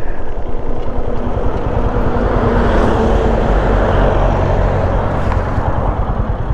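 Royal Enfield Himalayan motorcycle riding along with its single-cylinder engine running steadily under a low rumble of road and wind noise; a rushing noise swells in the middle and eases off again.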